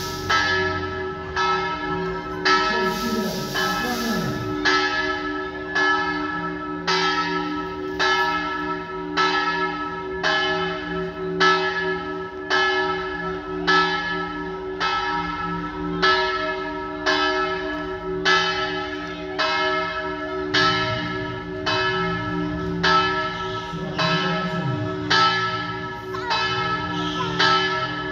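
Church bells in a village bell tower ringing in a steady run of strokes, a little under one a second, each stroke ringing on over the bells' low, sustained hum.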